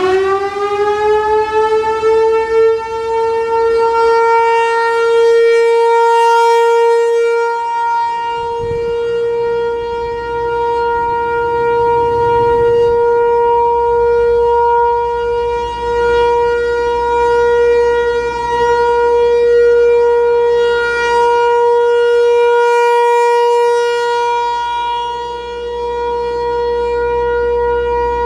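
American Signal Tempest T-128 rotating outdoor warning siren sounding a scheduled test. It finishes winding up to full pitch about two seconds in, then holds one steady tone, its loudness slowly swelling and fading as the head turns.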